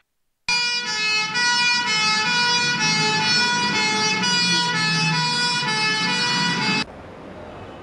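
Loud siren-like sustained tones with many overtones, shifting pitch in steps. They start about half a second in and cut off suddenly about a second before the end, leaving faint background noise.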